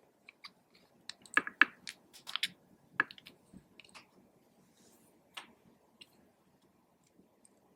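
Clear slime being squished and worked by hand, giving a run of sharp sticky clicks and pops. They are loudest about a second and a half in and thin out after about five and a half seconds.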